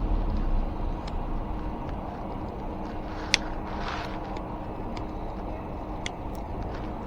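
Steady low background rumble with a sharp click about three seconds in, a soft rustle just after, and another light click near the end.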